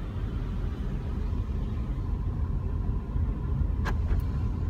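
Steady low rumble of a car's engine and tyres on the road, heard from inside the cabin while driving, with a faint steady high tone and a single short click near the end.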